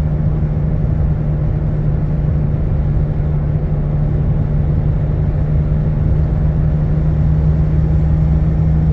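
Car driving at highway speed: a steady low hum droning over the road rumble. It is the noise of a bad wheel bearing, which the driver first took for a dragging brake.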